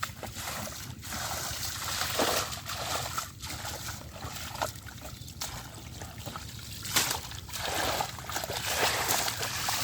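Shallow water splashing and sloshing in irregular bursts over a steady trickle.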